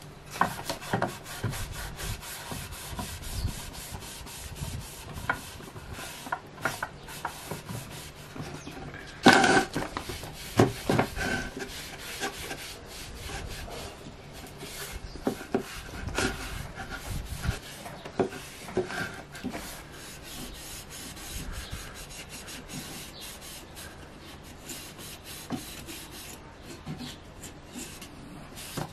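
Sponge rubbing food-safe oil into a walnut tray in irregular wiping strokes, with a few louder bumps as the tray is handled, the loudest about nine seconds in.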